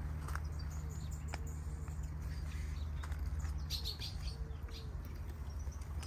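Small aviary birds, finches and softbills, giving scattered faint chirps and calls, with a brief flurry of high chirps about midway, over a steady low rumble.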